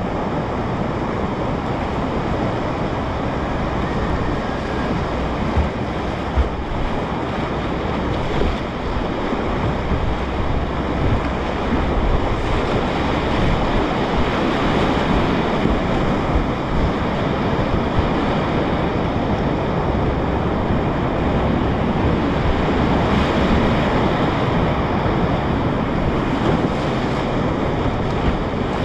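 Whitewater of a class III+ river rapid rushing loudly and steadily around a kayak, heard close from a camera on the boat, with wind buffeting the microphone and a few brief louder splashes.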